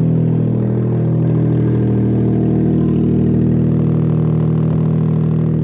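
Smart ForTwo 451's three-cylinder engine idling steadily with its exhaust removed, running open behind the catalytic converter and noisy.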